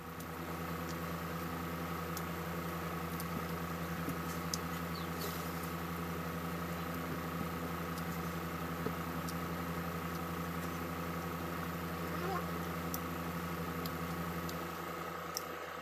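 Electric fan running with a steady hum made of several constant tones, with a few faint clicks scattered through it.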